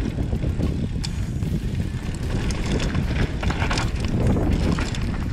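Mountain bike riding down a dirt downhill trail: a steady rumble of tyres over the ground and wind buffeting the microphone, with scattered knocks and rattles from the bike over bumps.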